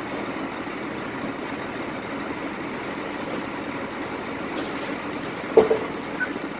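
Boat's engine running steadily, with a single short sharp sound about five and a half seconds in.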